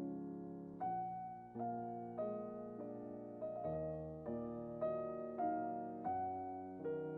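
Background piano music: a slow, gentle series of sustained notes.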